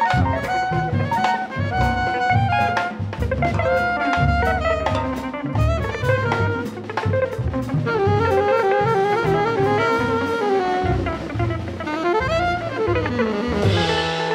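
Jazz band recording: a horn plays a melodic line over a walking bass and a drum kit with frequent cymbal and drum strokes. A cymbal crash comes near the end.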